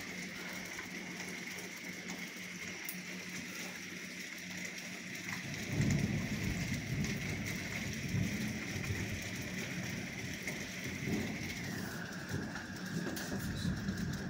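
Steady rain hissing down on slate roofs. About five or six seconds in, a low rolling rumble of thunder builds and swells several times.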